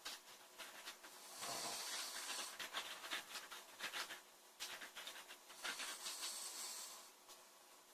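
A girl snoring in her sleep: two long, hissing breaths with a fine fluttering rattle, a few seconds apart.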